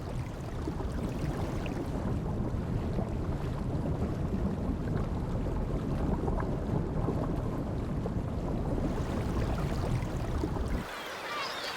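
Steady churning and splashing of water as a group of pelicans fishes together, driving fish before them. The splashing cuts off sharply near the end.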